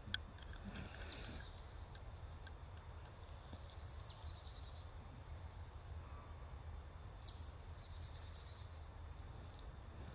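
A small songbird sings several times: high, thin phrases that slide down in pitch, some ending in a quick trill. A single sharp click sounds right at the start, over a low steady background hum.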